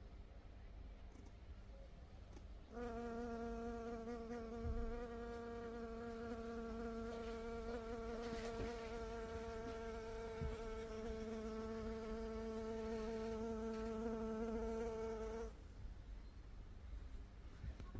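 A honey bee's wingbeat buzz: one steady, even hum that starts about three seconds in and cuts off suddenly a few seconds before the end, over a faint low background rumble.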